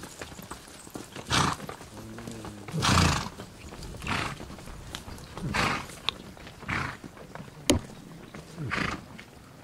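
Horses: a series of short, breathy snorting sounds roughly every second, with a single sharp click near the end.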